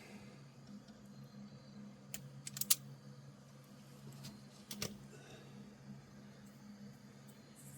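Scattered sharp clicks of hand tools at work on wiring, loudest in a quick cluster a little under three seconds in and again near five seconds, over a steady low hum.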